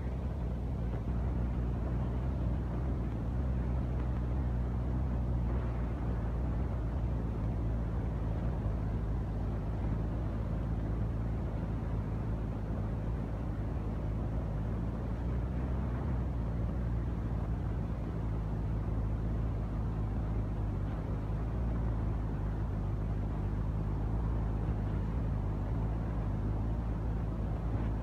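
A steady low engine drone, an engine or motor running at an even speed throughout.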